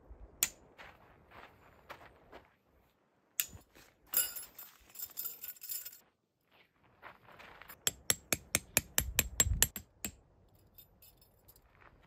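Metal tent poles of an instant cabin tent clicking and rattling as the poles are set and the tent is raised. There is a single sharp click about half a second in, a rattling stretch in the middle, and a quick run of about a dozen sharp clicks near the end.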